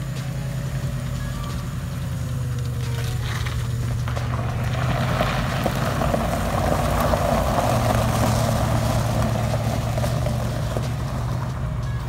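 Ford 302 small-block V8 in a 1966 Mustang running steadily as the car drives past. Its tyres crunch on gravel in the middle, as it rolls onto a gravel driveway.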